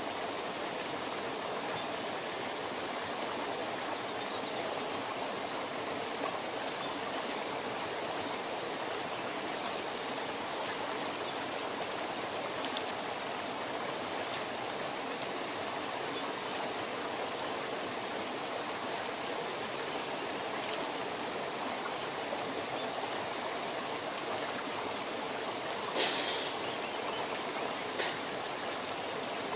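Mountain stream running over rocks, a steady rushing. Near the end come a couple of short sharp sounds, the first the loudest.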